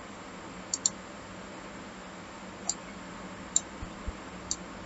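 Computer mouse clicks over a steady faint hiss: a quick double click about a second in, then single clicks roughly a second apart.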